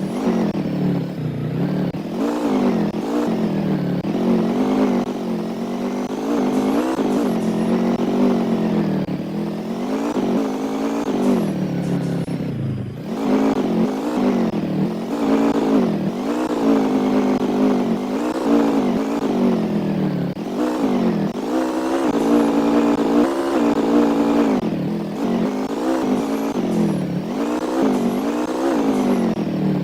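Vehicle engine running under varying throttle while driven, its pitch rising and falling every second or two.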